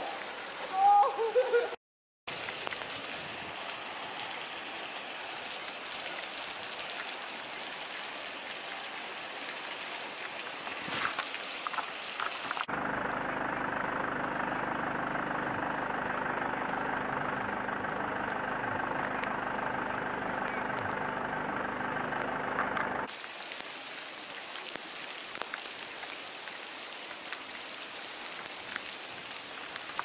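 Steady rain and floodwater noise on a flooded street, in several shots cut together; in the middle stretch the noise is louder and carries a faint steady hum like a running engine.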